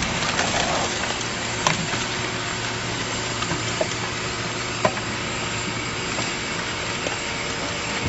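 Hydraulic scrap car baler running steadily as its ram pushes a pressed car bale out of the chamber, with a few sharp clicks, the loudest about five seconds in.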